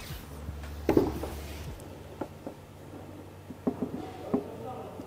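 Gamo Speedster gas-piston break-barrel air rifle being cocked: the barrel snaps shut with a sharp clack about a second in. A few small clicks and knocks follow as the rifle is handled and settled onto the shooting rest.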